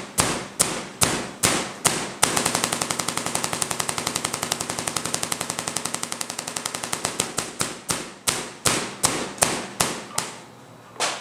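Three-phase Tesla coil firing arcs, sharp cracks at about two a second that speed up about two seconds in to a fast rattle of roughly a dozen a second, then slow back to about two a second and stop near the end.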